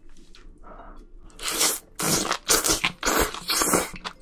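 Close-miked eating of spicy braised octopus with bean sprouts: after a quiet start, a series of loud, crunchy bites and chews begins about a second and a half in.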